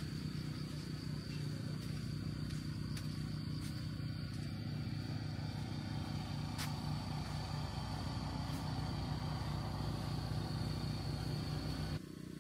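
Steady low mechanical hum with a thin, constant high whine above it; both cut off abruptly near the end.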